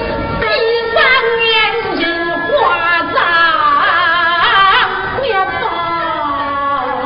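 Huaiju (Huai opera) singing: a voice sings an ornamented phrase with sliding, bending pitches, settling into a held note near the end.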